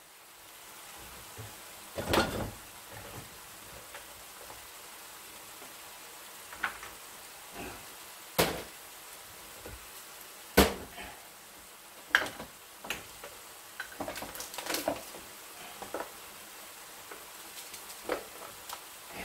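Onion, tomato and diced fish simmering in olive oil in a frying pan, a faint steady sizzle. Scattered sharp clicks and knocks break through it, the loudest about two seconds in.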